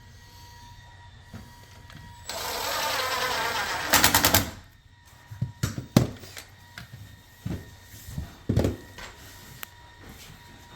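Power drill driving a screw into a cabinet door hinge for about a second and a half, ending in a quick run of sharp clicks. This is followed by scattered knocks and taps of the door and hardware being handled.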